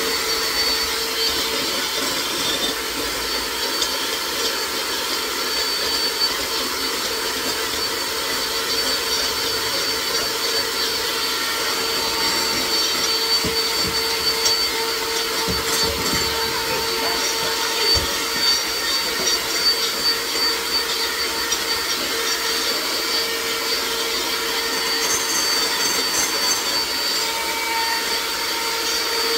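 Electric hand mixer running steadily, its beaters whipping egg whites in a glass bowl: a constant motor whine with a few low knocks about midway.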